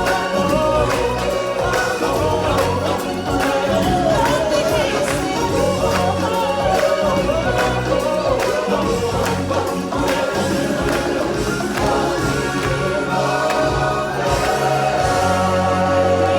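Live stage-show music: a group of voices singing together over a band with a steady percussion beat.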